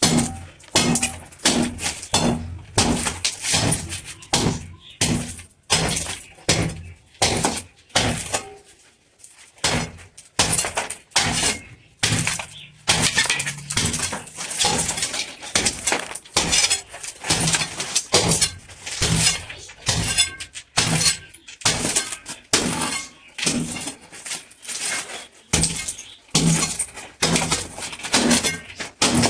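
Repeated hammer blows breaking into tile and masonry, about two strikes a second with a short pause about nine seconds in.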